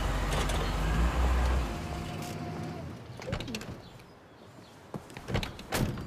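A vehicle's engine running with a low rumble, cutting off about two seconds in, followed by several sharp clicks and knocks in the second half.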